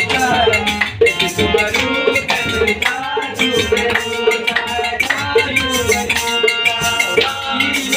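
Kumaoni folk music played live: a harmonium holds a tune over steady, fast percussion with a rattling beat.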